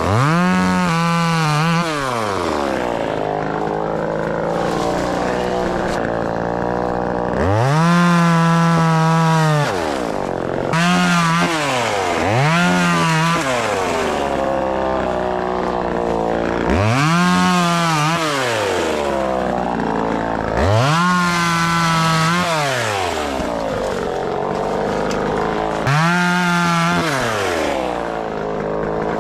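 Vevor 12-inch 25cc two-stroke chainsaw revving up to full throttle about seven times, sometimes held high for a second or two, dropping back to idle in between.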